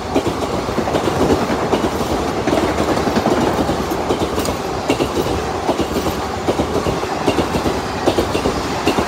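Indian Railways express passenger coaches running past at speed: a steady rushing rumble with the wheels clattering over the rail joints in quick, irregular clicks.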